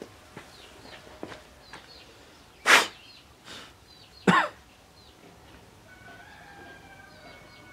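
Two short coughs about a second and a half apart, over a few light clicks and taps of hands and tools on metal.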